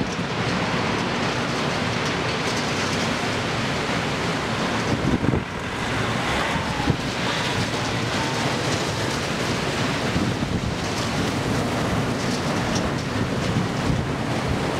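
Strong wind blowing hard across the microphone: a loud, steady rushing with a low buffeting rumble.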